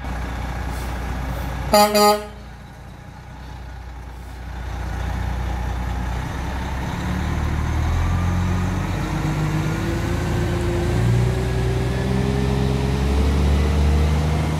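Two quick horn toots, then a semi truck's diesel engine pulling away, its low rumble growing louder and its note rising slowly as the truck gathers speed.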